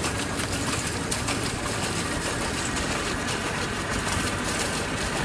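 A boat motor running steadily, a continuous low drone with no change in pitch.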